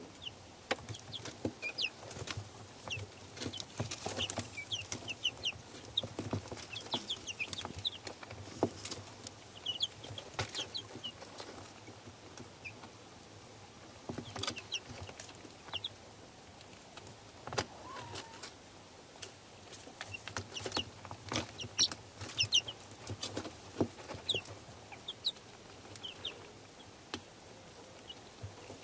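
A flock of 20-day-old Leghorn Exchequer chicks peeping in many short high chirps while feeding, with frequent sharp taps and clicks of beaks pecking at the feed and litter.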